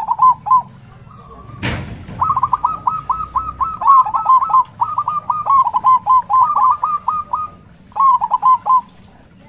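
Zebra dove singing its staccato cooing song: a short phrase at the start, then a long run of rapid coos lasting about five seconds, and another short phrase near the end. A single brief knock sounds just before the long run.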